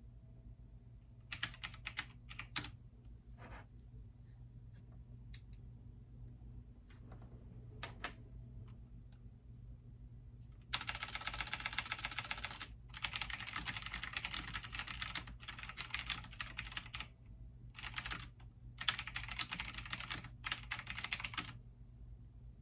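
Typing on a computer keyboard: a few scattered keystrokes at first, then fast continuous typing from about halfway through, broken by short pauses. A steady low hum runs underneath.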